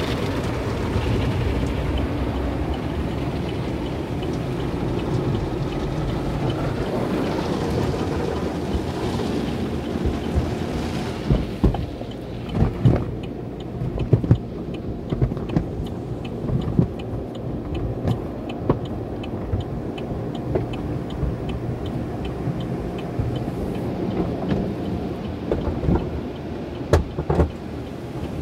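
Belanger tunnel car wash heard from inside the car's cabin: water spraying steadily over the glass, then from about eleven seconds in, the cloth wash strips slapping and thudding against the body and windows.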